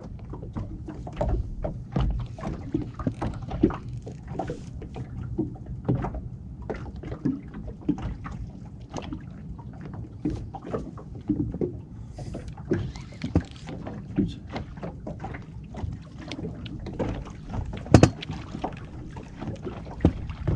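Irregular knocks and clatter of gear being handled aboard a small fishing boat, over a low rumble, with one sharp, loud knock near the end.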